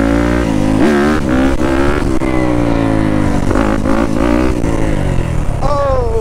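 Yamaha YZ250F dirt bike's single-cylinder four-stroke engine revving hard through a wheelie. The pitch climbs and falls again and again as the throttle is worked, with a sharp climb and drop near the end.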